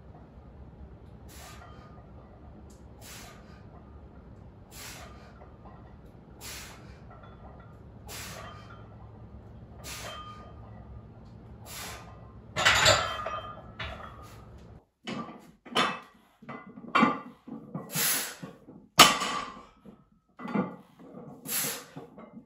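Barbell bench press set: a short hissing sound with each of seven reps, about every 1.7 s, over a steady low hum, then a loud metal clatter about 13 s in as the bar is racked. After that, irregular short sounds and one sharp metallic knock of a heavily loaded barbell during a deadlift setup.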